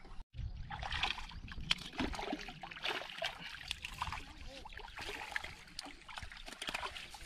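A hooked fish thrashing and splashing at the water's surface as it is drawn to a landing net, with irregular splashes and sloshing throughout.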